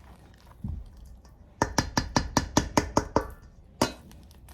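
A kitchen utensil knocking quickly against a bowl, about a dozen sharp taps in a second and a half, then one more, during the mashing of boiled cassava.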